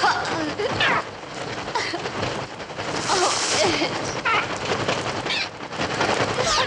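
Film soundtrack of a swarm of birds attacking at close range: dense, rapid wing-flapping with shrill bird shrieks gliding up and down over it, the bird sounds created electronically on a Mixtur-Trautonium.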